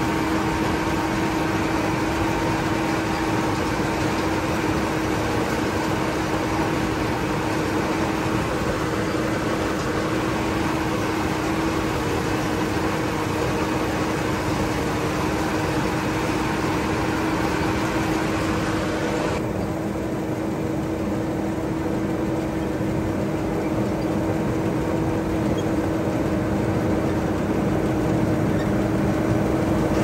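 Rice combine harvester's engine running steadily, a continuous drone with a constant hum; the hiss above it thins about two-thirds of the way through.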